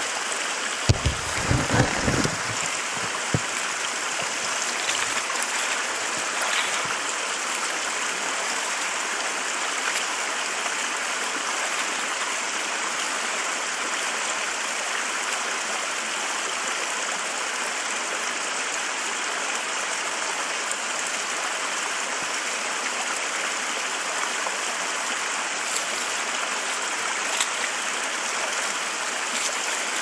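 Shallow river running over stones, a steady even rush of water. A few low thumps come in the first couple of seconds.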